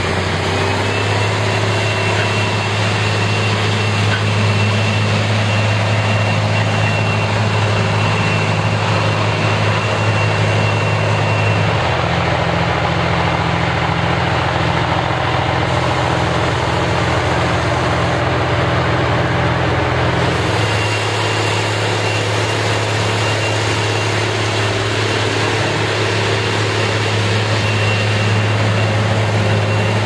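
Large articulated diesel tractors, a Rába 300 and a Kirovets K-701, running steadily under load while pulling ploughs, with a strong low engine hum. The engine sound changes abruptly twice, about twelve and twenty-one seconds in, as one tractor gives way to the other.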